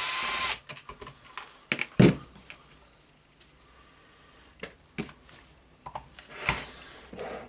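A cordless drill-driver spins briefly and stops, backing a screw out of the demolition hammer's handle. Then come scattered knocks and clicks as the drill is laid down on the wooden workbench and picked up again, the loudest knock about two seconds in.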